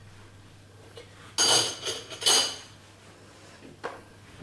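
A metal spoon clinking twice against cookware, each knock ringing briefly.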